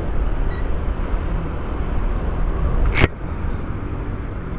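Motor scooter underway: steady wind rush on the microphone over the engine's drone, with a single sharp click about three seconds in.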